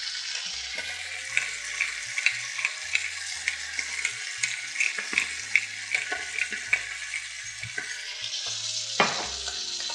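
Chicken breast slices frying in hot oil in a cast iron pot: a steady sizzle with many small crackles, and a pepper mill being twisted over the pan. A louder crackle stands out near the end.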